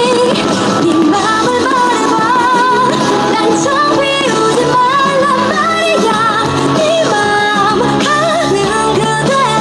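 Pop-style music with a singer holding wavering notes over a full instrumental backing.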